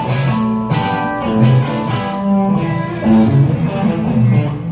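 Live rock band playing an instrumental passage with no vocals: guitar leads a run of notes over a bass line.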